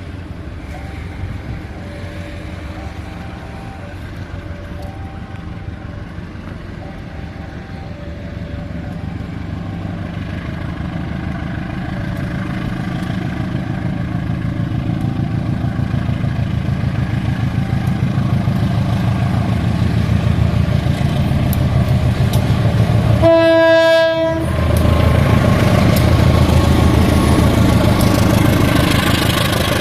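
CC 201 diesel-electric locomotive hauling a passenger train, its engine rumble building steadily as it approaches, with an alternating two-tone signal sounding in the first third. About 23 seconds in the locomotive gives one short blast of its horn, then runs past loudly.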